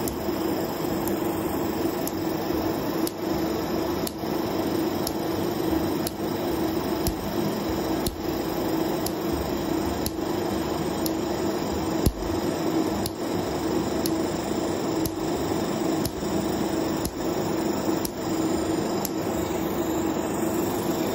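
Laser tattoo-removal handpiece firing rapid pulses onto the skin, a dense, steady crackle of snaps over the laser unit's constant hum. A sharper tick comes about once a second.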